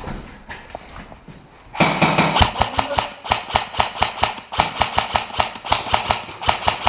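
Airsoft electric gun firing a rapid string of single shots, about five sharp cracks a second, for roughly six seconds starting about two seconds in.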